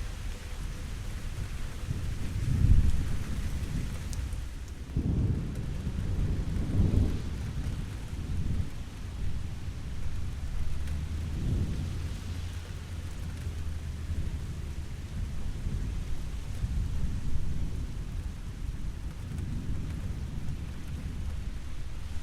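Steady rain with rolling thunder. Low rumbles swell and fade several times; the strongest comes about three seconds in, and another long one runs from about five to seven seconds in.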